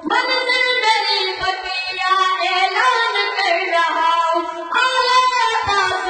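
A boy singing an Urdu song solo into a microphone, in long held notes that bend in pitch, with brief breaks between phrases.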